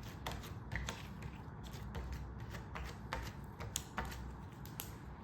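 Hands squeezing and working homemade slime, giving irregular sticky clicks and pops a few times a second.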